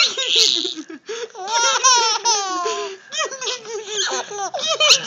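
A baby laughing hard: several runs of rapid, high-pitched laughs, each falling in pitch, with short breaths between them.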